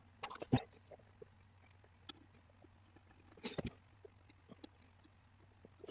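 Scattered faint clicks and taps of small tools handling the board during hand soldering, with two louder short knocks about half a second in and about three and a half seconds in, over a steady low electrical hum.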